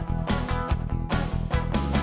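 Background music: an upbeat guitar-led rock track with a steady beat.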